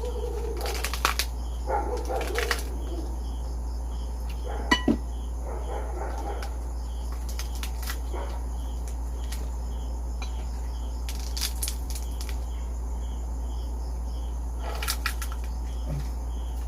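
Crunching and chewing on crispy deep-fried pork skin in a few short bursts, over a steady low hum and a cricket chirping at an even pace.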